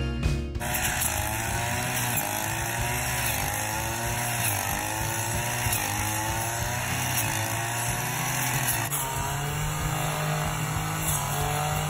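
Petrol brush cutter running, its engine pitch rising and falling again and again as the blade sweeps through grass and weeds; after about nine seconds it settles into a steadier, lower hum.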